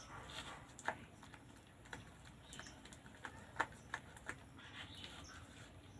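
Hands kneading pitha dough of rice flour, flour and semolina in a steel bowl: faint, irregular light clicks and taps as fingers work the dough against the metal.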